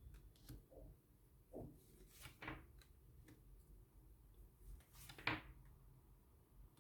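Near silence with a few faint taps and rustles of tarot cards being handled on a table, the loudest about five seconds in.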